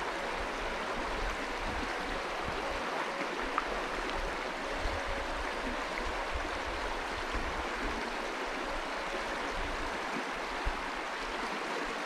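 River current rushing steadily over stones in a shallow riffle, an even hiss of running water.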